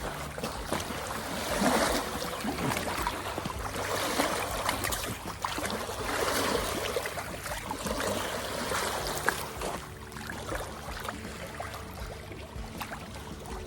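Shallow water splashing and sloshing, swelling and easing every second or two, as a channel catfish is held in the water and released.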